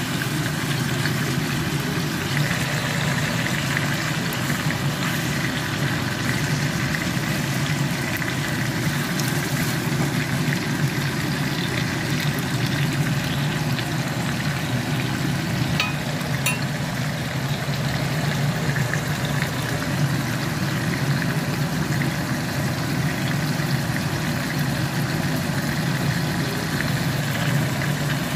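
Marinated steak frying in oil in a non-stick pan, a steady sizzle, over a steady low hum.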